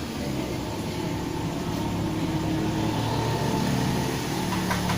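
Steady low engine hum of a motor vehicle, with a couple of light clicks near the end.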